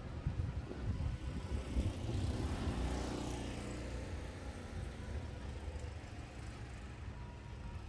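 A car passing on a nearby street, its noise swelling to a peak about three seconds in and then fading, over a steady low rumble.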